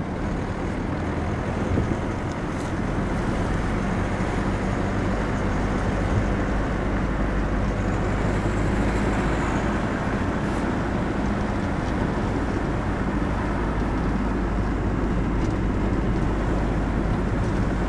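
Steady road and engine noise of a moving car, heard from inside the cabin. It grows louder about three seconds in.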